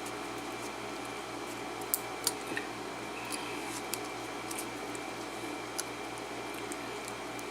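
A few short, light metal clicks and ticks as a shim is worked in between the plug and the housing of a pin-tumbler lock cylinder, over a steady low hum.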